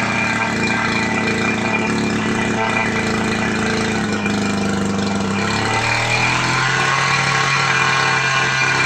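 Small petrol engine of a portable engine-driven pump running steadily after repairs to its weak ignition and carburettor diaphragm; its speed rises a little about halfway through.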